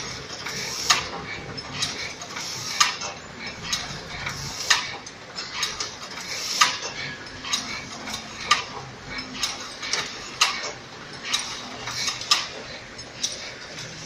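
Fully automatic crimped wire mesh machine running, with a sharp metallic clack repeating evenly about once a second and lighter clinks in between.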